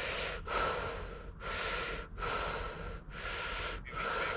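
A person breathing hard and fast close to the microphone, with quick in-and-out breaths about a second each. The angler is winded from fighting a large brown trout.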